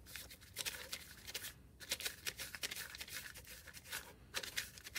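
Soft, irregular rustling and rubbing as a hand rolls a coil of fresh clay back and forth on newspaper.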